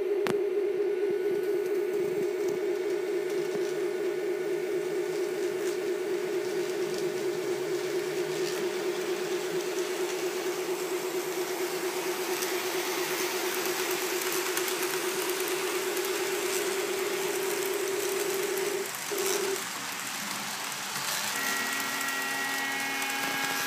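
Model Union Pacific diesel locomotive running on its layout: a steady hum of the motor and the sound unit's diesel engine sound, which stops about nineteen seconds in. Near the end a chord of several steady tones sounds, the locomotive's multi-note horn.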